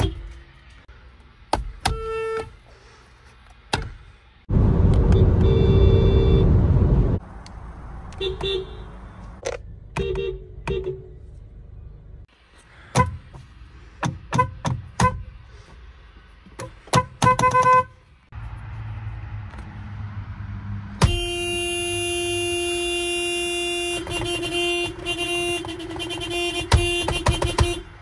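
Car horns of several Japanese cars, among them a Toyota Prius and a Mazda, each sounded in turn. There are short beeps, a loud held blast of about two and a half seconds, clusters of quick beeps, and a long held honk of several seconds near the end.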